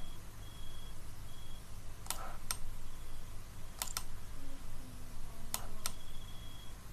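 Clicks of a computer mouse and keyboard: a few sharp clicks, mostly in close pairs, spaced one to two seconds apart, over a faint steady hum.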